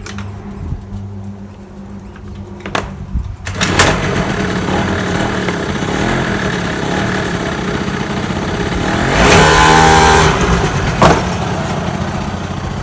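Eton DXL-90 ATV's 90cc two-stroke engine running, low and steady at first, then much louder from about three and a half seconds in. It revs up and back down around nine to ten seconds in.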